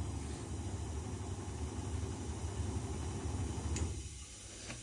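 Powered table-elevation motor of a Sanderson WDE 1300 wide belt sander running with a steady low hum as the thicknessing table rises. About four seconds in there is a click and the hum stops, as the table's thickness sensor meets the workpiece.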